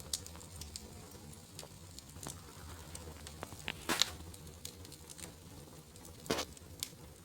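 Wood fire crackling in a fireplace: scattered sharp pops and clicks over a quiet steady background, with louder pops about four seconds in and again just after six seconds.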